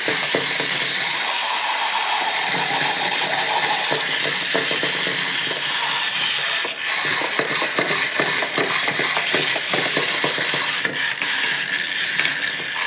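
Several small wind-up toys running on a tabletop: clockwork gears whirring with a dense, steady clatter of clicks and ticks.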